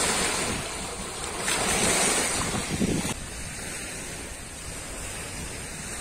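Lake waves breaking and washing over a pebble and rock shore, with wind buffeting the microphone; about three seconds in the wash drops to a quieter, steadier level.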